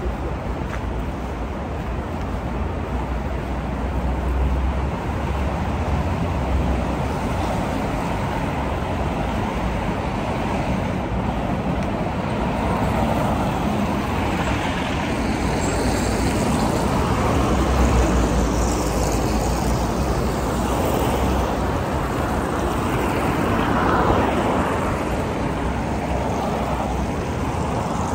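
City street traffic: cars driving past on a wide avenue, a steady noise of tyres and engines that swells now and then as single vehicles go by.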